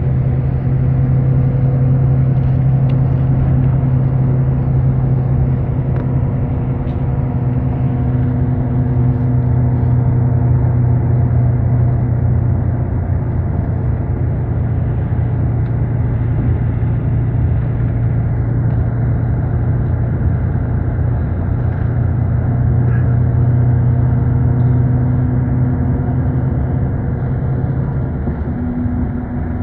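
Steady engine drone and road rumble of a moving road vehicle heard from inside the cabin, with a low hum that eases off near the end.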